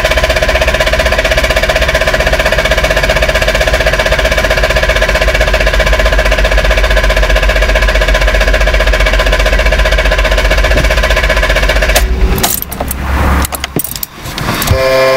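BMW E34 520i engine running steadily, then cutting out suddenly about twelve seconds in as it stalls. The owner suspects a faulty intake air temperature sensor, reading −36 °C, is the cause. A few irregular knocks and rustles follow, and a beeping warning tone begins right at the end.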